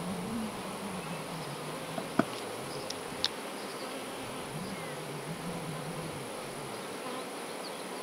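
Honey bees buzzing around an open hive and a comb frame crowded with bees, one buzz wavering up and down in pitch. Two short clicks at about two and three seconds in.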